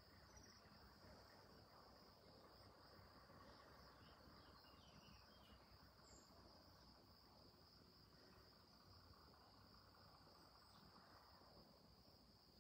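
Near silence outdoors, with insects giving a faint, steady, high-pitched trill throughout.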